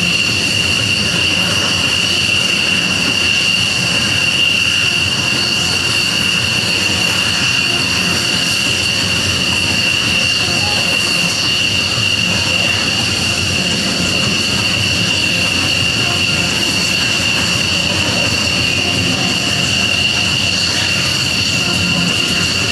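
Several F-16 Fighting Falcon jet engines idling on the ramp: a steady, high-pitched whine over a constant rush of jet noise.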